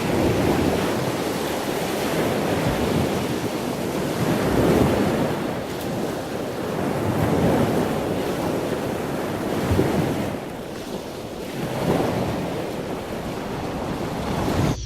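A rushing noise that swells and fades every two to three seconds, like surf washing in.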